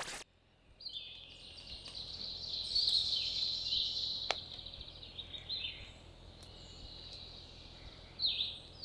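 Small songbirds singing together in a chorus of high overlapping trills and chirps, loudest a few seconds in. There is a single sharp click about halfway through.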